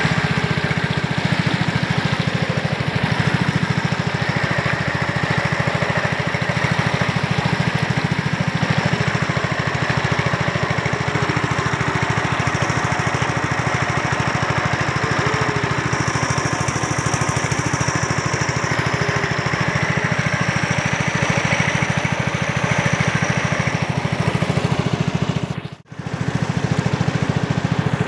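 Small outboard boat engine running steadily at speed, with water rushing along the hull. The sound breaks off for a moment near the end.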